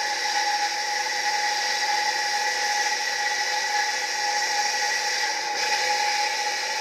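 Small secondhand electric water pump switched on for a test run on the bench, its motor running steadily with a high whine over a whirr, without water.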